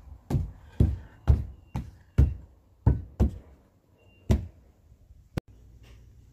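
A run of about eight dull knocks, roughly two a second, stopping about four and a half seconds in, followed by one sharp click and a faint low rumble. Faint short high chirps sound between the knocks.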